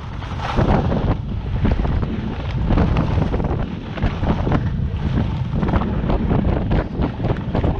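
Loud wind buffeting the microphone of a skier moving fast downhill, with the hiss and scrape of skis carving on packed snow.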